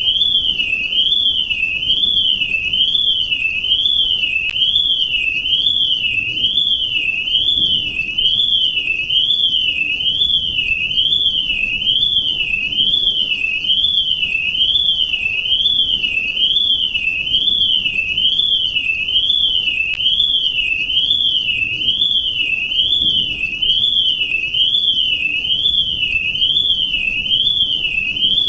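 Electronic alarm: a high tone warbling up and down steadily, a little more than once a second, without a break.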